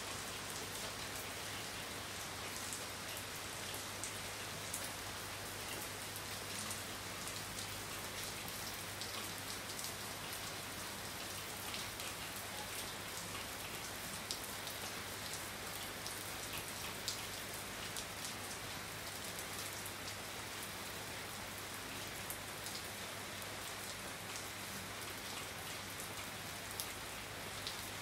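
Steady rain falling on a wet street and roof, with nearby drops ticking sharply now and then.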